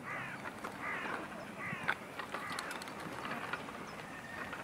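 A bird giving a quick series of short, harsh calls in the first two seconds, then a few faint clicks and ticks.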